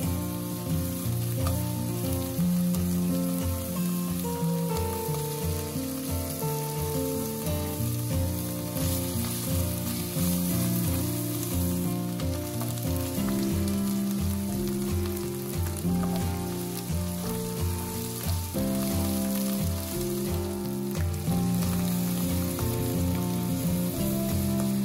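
Spice paste of blended onion, garlic and chilli frying in oil in a wok, sizzling steadily as a spatula stirs it. Background music with a steady beat plays underneath.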